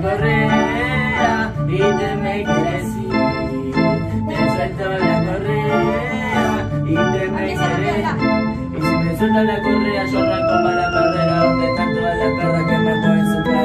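Portable electronic keyboard played with an organ voice: sustained organ chords over a moving bass line, with a melody on top.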